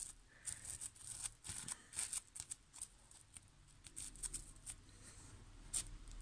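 Plastic cling film crinkling and rustling in short, irregular crackles as fingers press it down and push it around over wet paint on paper. The crackles stop about six seconds in, when the hands lift away.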